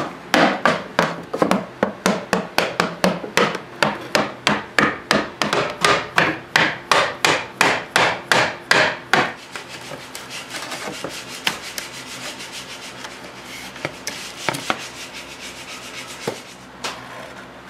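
A hand tool working the wood of an antique drawer side, in quick even strokes of about three a second for the first nine seconds or so. Then softer, steady scraping with a few sharp clicks.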